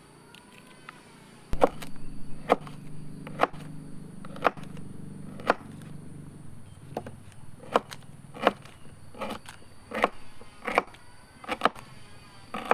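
Repeated sharp blows of a hand tool, starting about one and a half seconds in at roughly one a second and coming a little quicker later on.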